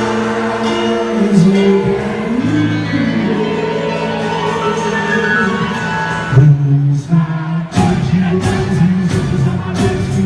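Loud amplified festa junina music with singing, for a quadrilha dance. The upper range thins out briefly about seven seconds in, then the beat comes back with sharp percussive hits.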